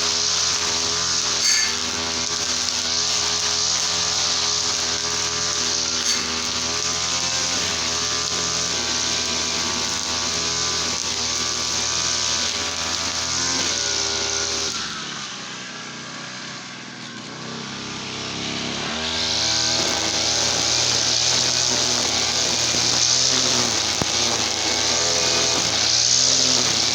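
TL33 two-stroke brush cutter engine running at high revs. About halfway through the throttle eases off: it drops toward idle for a few seconds, then revs back up.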